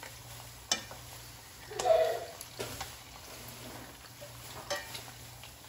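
Metal tongs clicking and clinking against a frying pan and a plate as pieces of pan-fried beef are picked out of the oil, over a low sizzle of frying; a few separate clicks, the loudest clatter about two seconds in.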